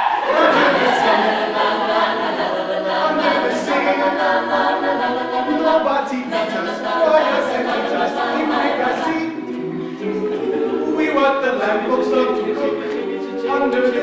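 Mixed a cappella group of men's and women's voices singing together in harmony, with no instruments.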